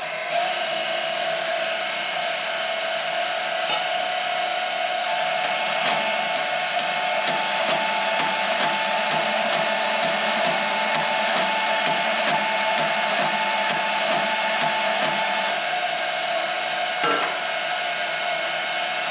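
DeWalt DCS374 20V brushless deep-cut portable bandsaw running steadily, its variable-speed trigger held on by a clamp, as a workpiece is fed into the blade. Under the motor's steady tone there is a rasping cutting noise, and a higher whine joins through the middle of the cut.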